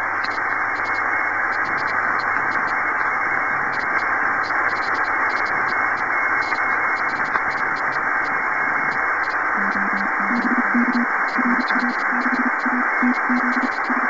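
Shortwave receiver hiss from an amateur HF transceiver tuned to the 15-metre CW segment. About ten seconds in, a faint low Morse code tone starts keying on and off over the noise.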